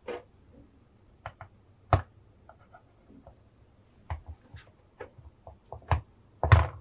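Hard plastic clicks and taps as a 1/6 scale figure's shoes are fitted onto the pegs of its round display base, with a few louder knocks and a short rubbing sound near the end.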